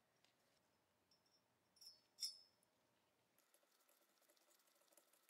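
Near silence, with a faint click and then one sharp metallic click a little over two seconds in as small steel parts are fitted into a Colt Model 1903 pistol frame, followed by faint light ticks.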